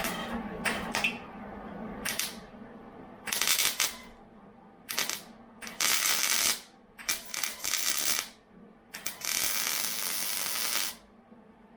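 Electric arc welding on a steel seat bracket, going in a series of separate bursts of hissing noise, each from under a second to nearly two seconds long, the longest near the end.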